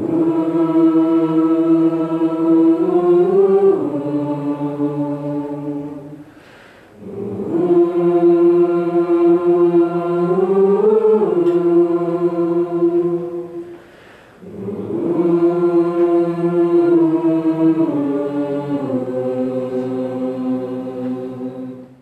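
Choir singing a cappella: three long held chords with short breaks between them, each chord shifting to a new harmony near its end.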